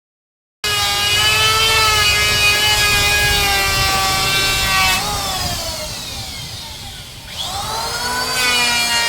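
Electric woodworking power tool running at full speed with a steady high whine, then winding down over about two seconds past the middle and quickly speeding back up near the end.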